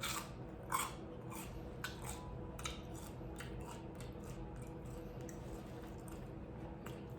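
Close-up chewing of a mouthful of pizza puff cheeseburger, with wet mouth clicks and smacks every half second or so, the loudest right at the start and about a second in. A faint steady hum sits under it.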